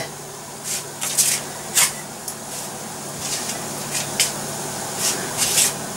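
Saucepan of water just off the boil with noodle nests in it: a steady hiss with short sizzling spits every second or so, over a low steady hum.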